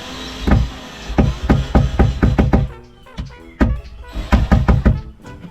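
Background music with a quick run of drum hits and short pitched notes.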